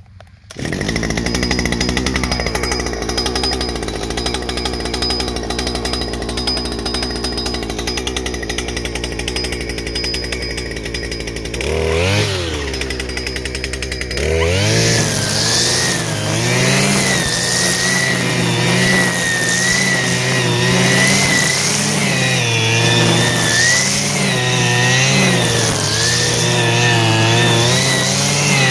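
Stihl FS 120 brushcutter's two-stroke engine comes in about half a second in and idles steadily. It blips up and back down about twelve seconds in, then from about fourteen seconds runs at high speed with wavering revs.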